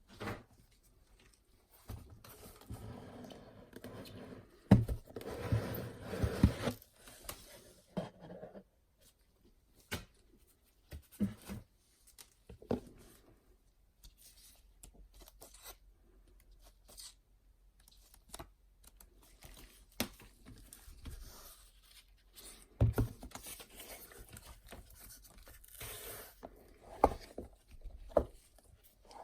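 Packaging being handled and unwrapped: rustling and tearing for several seconds, then scattered sharp clicks and knocks, and a second stretch of rustling with knocks near the end.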